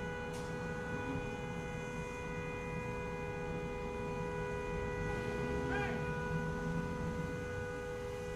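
A steady, unchanging droning tone made of several pitches held together, over a low rumbling noise.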